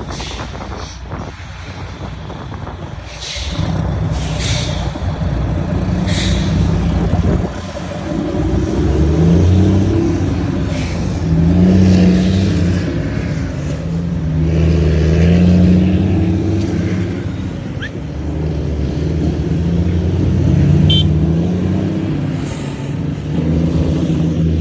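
Volvo FH trucks' straight-six diesel engines rumbling through aftermarket exhausts: a deep steady drone that rises in pitch several times as the trucks accelerate.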